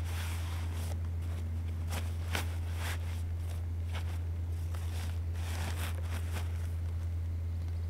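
Scattered rustles and scrapes of a tent being pushed down into its fabric stuff sack, then the sack's cord being pulled, over a steady low hum.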